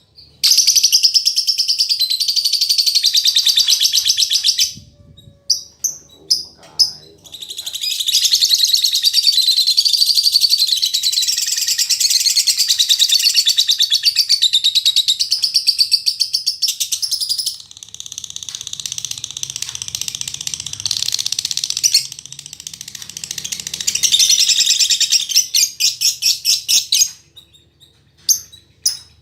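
Female lovebird chattering in long, rapid runs of high chirps, broken by short pauses of a few separate calls about five seconds in and again near the end.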